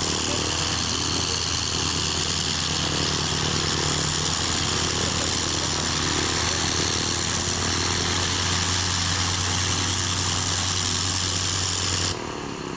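1913 Caudron G.III biplane's engine running steadily on the ground, then cut off suddenly about twelve seconds in.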